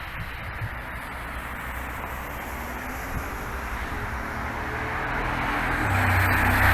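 Outdoor rushing noise with a low vehicle rumble that grows louder over the last couple of seconds, as of a passing vehicle drawing near.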